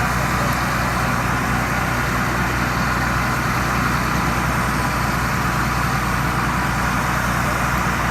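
Thai Seng Yont rice combine harvester running steadily: a constant engine drone with an even rushing noise over it, no change in speed.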